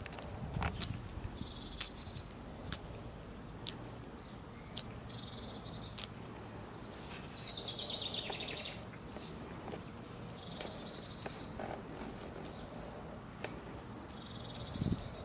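White domestic goose grazing, its bill snipping and tearing off grass in sharp snaps at irregular intervals of roughly a second, a sound like a horse cropping grass. Wild birds chirp and trill in the background.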